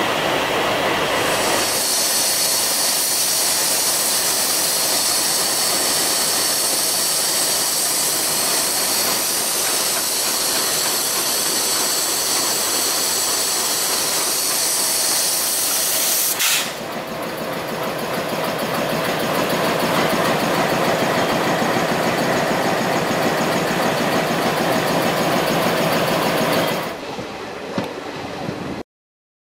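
WDG3A diesel locomotives running past on the track, a steady engine-and-wheel noise with a strong hiss on top. About halfway it changes abruptly to another diesel-hauled train passing with wheels clattering over the rails, and the sound cuts out just before the end.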